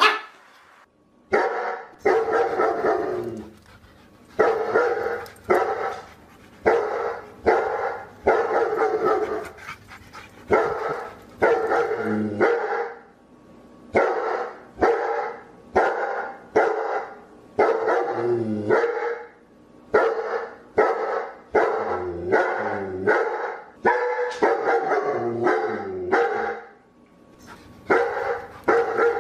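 Dog barking over and over, about one bark a second, with a couple of brief pauses.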